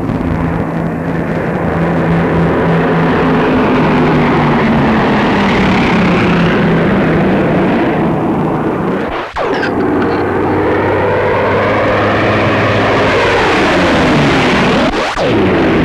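Piston-engined aircraft flying low overhead, most likely Bristol Blenheim bombers with their Bristol Mercury radial engines, in a steady loud drone. The sound cuts off briefly twice, about nine seconds in and near the end. After the first cut the tone sweeps down and back up as an aircraft passes close by.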